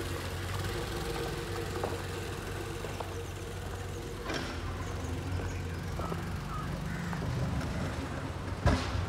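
Small scooter engine running steadily as the converted scooter is ridden; a sharp knock near the end.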